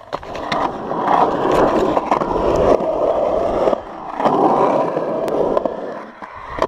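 Skateboard wheels rolling on a concrete skatepark surface, with scattered sharp clicks. The rolling noise dips briefly at about four seconds and again just after six seconds.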